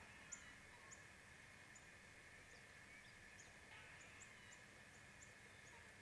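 Near silence: faint steady outdoor ambience with a high, even hiss-like hum and many short, very high ticks scattered through it, one a little louder just after the start.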